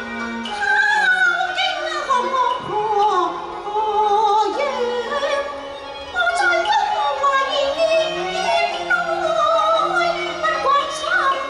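A woman singing a Cantonese opera song (Cantonese operatic singing) through a microphone, with vibrato in a high, wavering voice, over a Chinese instrumental accompaniment.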